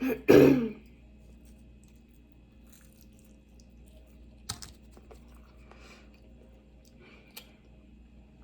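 Close-miked eating of chicken and potato wedges: a loud mouth sound or bite in the first second, then quiet chewing with a couple of sharp clicks about four and a half and seven and a half seconds in.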